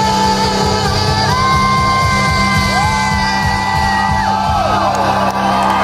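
Live rock band playing with drums and bass keeping a steady beat. Long held high notes bend downward at their ends, with crowd whoops and shouts over the music.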